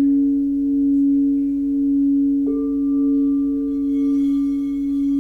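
Singing bowl ringing with a pure, sustained low tone that swells and fades slowly about once a second. About halfway a second, higher bowl tone is struck and rings on over it.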